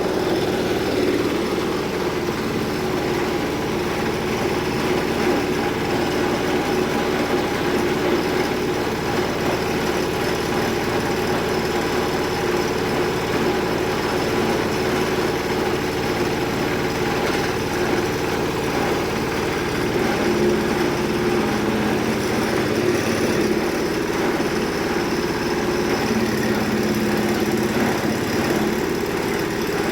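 Motor-driven multifunction chopper-grinder machine running steadily.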